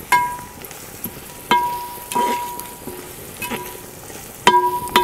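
Metal ladle stirring onions and ginger-garlic paste frying in oil in a metal pot, knocking against the pot about five times so that it rings, over a steady low sizzle. The paste is being stirred until its raw smell cooks off.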